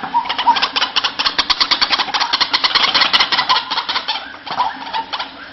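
White-breasted waterhen (ruak-ruak) calling: a fast chattering run of harsh pulses, about ten a second, mixed with short whistled notes, thinning out near the end.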